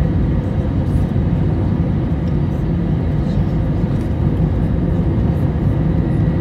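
Airliner cabin noise: a steady low rumble of the jet's engines and airflow, heard from inside the cabin as the plane rolls along the ground.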